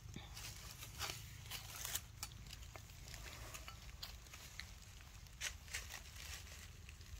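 Baby macaque sucking and mouthing on bare skin, making faint scattered wet clicks, with a few louder ones about a second in, two seconds in and five and a half seconds in, over a low steady rumble.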